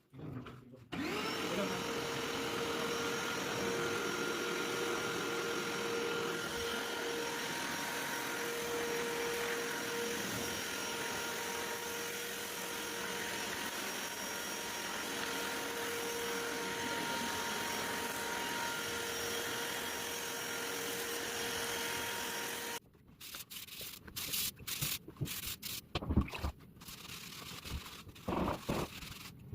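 A vacuum cleaner runs steadily with a whining motor for about twenty seconds, then switches off. A few scattered knocks and clicks follow.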